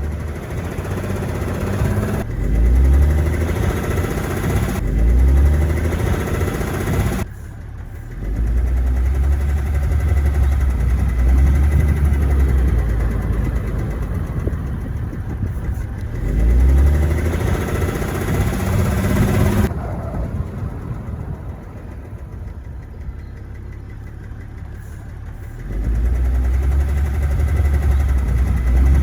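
BMW M57N 3.0-litre straight-six diesel running with a knock, its sound swelling and easing several times. The knock comes from a worn bearing shell on cylinder five.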